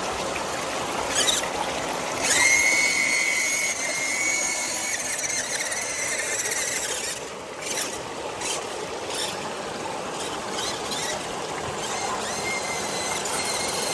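Sherp amphibious all-terrain vehicle on the move, giving off a steady high-pitched squeal that sets in about two seconds in, drops away around seven seconds and comes back faintly near the end, over a constant noisy running sound.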